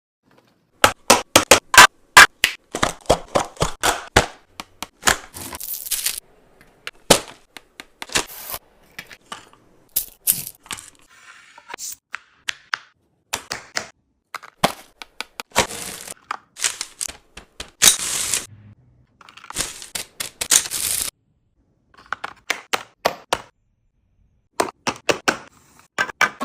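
Restocking a mini fridge: rapid clicks, knocks and crinkling of snack packets and small containers being handled and set in place, in short clipped bursts with brief silences between them.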